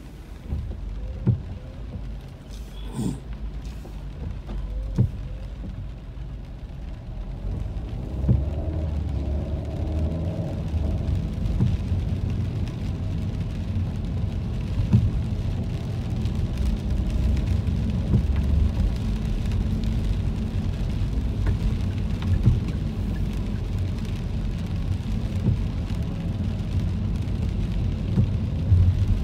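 Car interior noise in the rain: a low engine and road rumble that grows louder about eight seconds in as the car gets moving, with scattered taps on the wet glass and bodywork.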